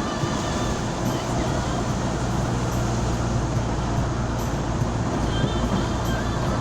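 Road vehicle on the move: a steady low engine hum under even road and traffic noise, with no sudden changes.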